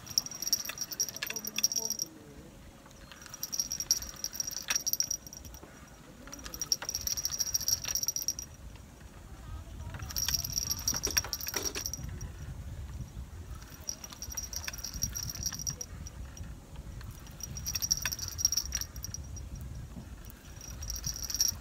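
Spinning reel being cranked in spells of about two seconds with short pauses between them: an angler reeling in a hooked fish, pumping the rod between turns. A low rumble runs under the second half.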